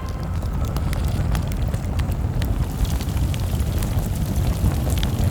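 Fire and molten metal erupting from a failed bell casting: a deep, steady rumbling roar with many scattered crackles and pops.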